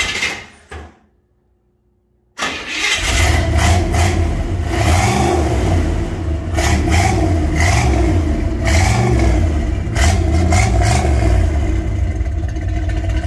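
A short burst of noise right at the start, then the 1968 Buick LeSabre's V8 fires up about two and a half seconds in and runs loudly through its new Magnaflow-style mufflers, a deep low rumble that rises and falls a little with the throttle.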